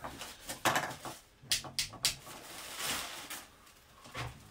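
Objects being handled around a fish tank: a series of sharp knocks and clatters, with a rustle about three seconds in and a dull knock near the end.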